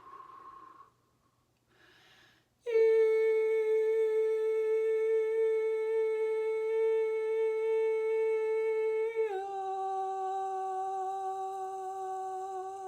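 A woman's voice humming one long, steady, held note, then stepping down to a slightly lower note a little past halfway and holding that one too. This is vocal toning in a light-language sound transmission.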